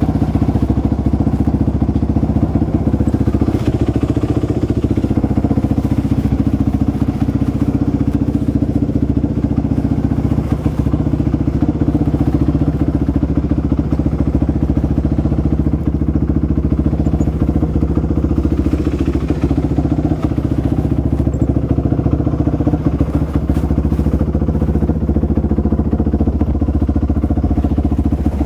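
Single-cylinder 450 cc four-stroke off-road engine idling steadily at a constant pitch, with no revving.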